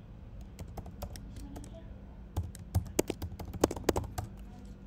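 Computer keyboard keystrokes: an uneven run of short clicks, thickest in a quick burst between about two and four seconds in, as a password is typed into a terminal.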